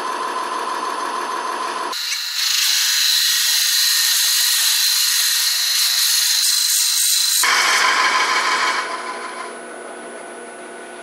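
Wood lathe running while a hollowing tool cuts inside a spinning segmented walnut bowl blank: a steady whine. About two seconds in the cutting hiss becomes much louder and higher, with a fixed high tone, until about seven and a half seconds in. Then it drops back to the lower whine and gets quieter near the end.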